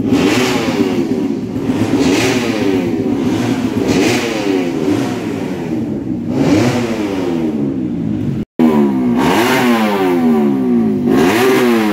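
Racing motorcycle engines being revved, the pitch swinging up and down in repeated throttle blips about every two seconds. The sound cuts out for a split second about eight and a half seconds in.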